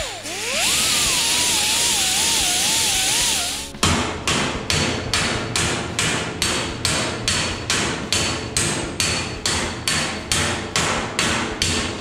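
An electric grinder cutting into steel sheet metal, with a high whine that wavers in pitch; it stops abruptly about four seconds in. Then a hammer strikes the steel panel in a steady rhythm of about three blows a second, shaping a lower cowl patch.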